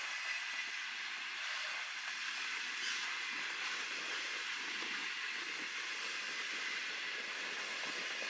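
Freight train wagons (container flats and boxcars) rolling past, a steady hiss of steel wheels on the rails.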